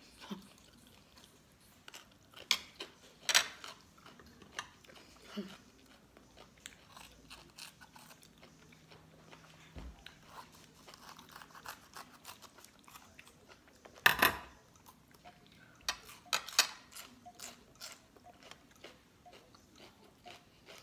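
Crisp crunching of raw vegetables being bitten, chewed and cut, with a few loud sharp crunches about three seconds in and again about fourteen and sixteen seconds in, and quieter crackling between.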